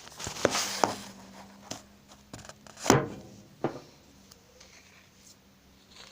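Handling noises: rustling and a few clicks, with a loud knock about three seconds in and a smaller one just after, then quieter.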